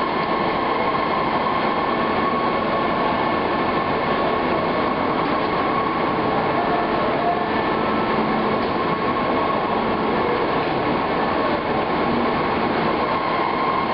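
Rubber-processing factory machinery running steadily: a dense, loud mechanical noise with a constant high whine.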